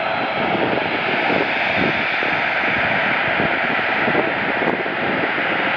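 Jet airliner's engines running, a steady rushing noise that holds at an even level.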